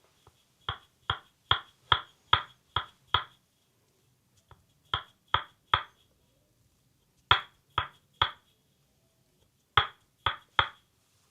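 Percussive massage strikes on the leg: sharp claps of the masseuse's hands, first a run of seven at about two and a half a second, then three groups of three.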